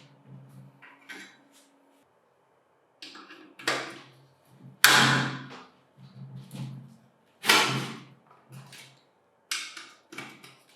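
A series of sharp knocks and clanks at irregular intervals, each ringing briefly as it dies away; the loudest come about five and seven and a half seconds in.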